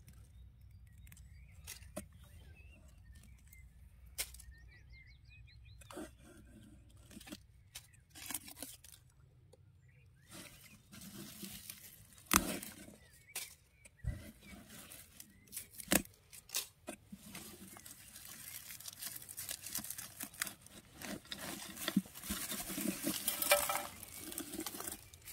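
Hands rustling through leaves and seedlings, with scattered sharp clicks and taps; the rustling grows denser and louder over the last few seconds.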